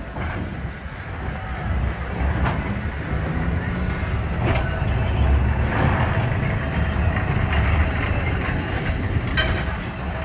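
Heritage Blackpool Balloon double-deck tram passing close by, a steady low rumble from its running gear on the rails that grows after about two seconds and stays strong through the middle. A few sharp clicks sound over it.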